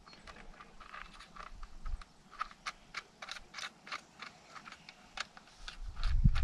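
Tin pie plate and bolt being handled: a run of small, irregular metal clicks and crinkles, several a second, as a nut is put onto a bolt through the folded plate, with a low rumble near the end.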